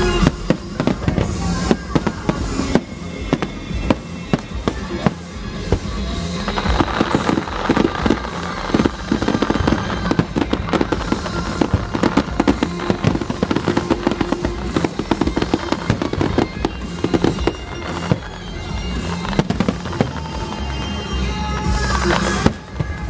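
Aerial fireworks display: a dense run of shell bursts, bangs and rapid popping, busiest through the middle, with music playing along underneath.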